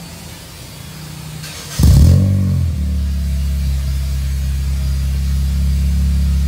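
Honda Mobilio's 1.5-litre four-cylinder engine starting through a newly fitted aftermarket full-system exhaust with an Ironcraft muffler. It gives a short loud flare about two seconds in, its pitch falling as it settles into a steady idle.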